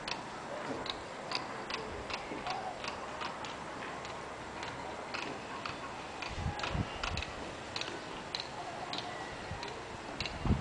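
A run of short, high ticks, about two to three a second and fairly regular, over a steady background hiss, with a few low rumbles about six to seven seconds in.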